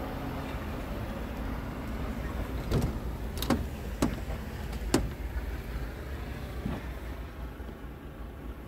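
A handful of sharp knocks and clicks in the middle of the stretch, from climbing the steps and grab handle into a Scania R truck cab, over a low steady rumble.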